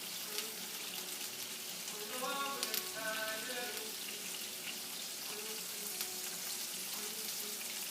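Flour-dredged chicken pieces frying in olive oil and butter in a pan, a steady sizzle.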